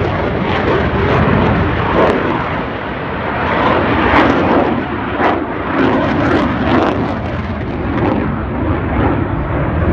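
Loud jet noise from a Eurofighter Typhoon's two EJ200 turbofan engines as it flies overhead, swelling and fading, with short crackling spikes through it.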